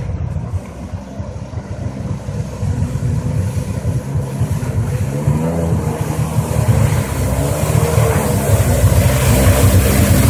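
Polaris Virage TX personal watercraft's engine running at speed, its pitch wavering up and down, growing louder as the craft approaches and passes close. Hiss of water spray rises near the end.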